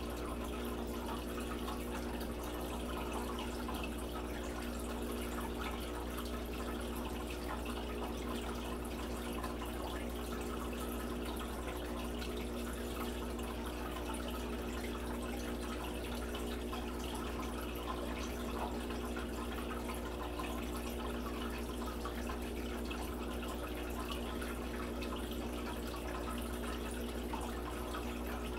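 Saltwater aquarium equipment running: a steady rush of circulating water over a constant low electrical hum from a pump.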